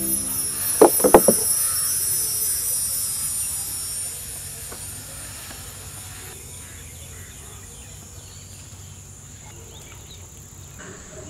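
A few sharp knocks about a second in as a plate is set down on a wooden table, over a steady high chirring of insects that gradually fades away.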